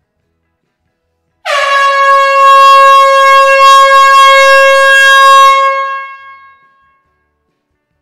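Air horn sounding one long blast on a single steady note, starting about one and a half seconds in and fading away over its last second or so.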